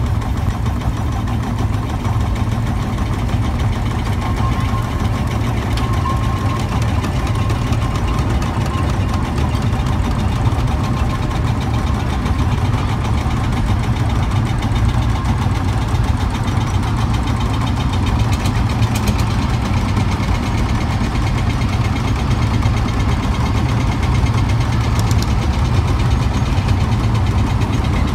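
Several vintage tractor engines running as the tractors drive slowly past, a steady low knocking beat.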